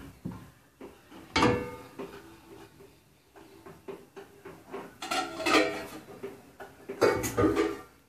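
Stainless steel plates and pans clattering and ringing in a dishwasher rack, with three loud bouts: about a second and a half in, around five seconds in, and near the end.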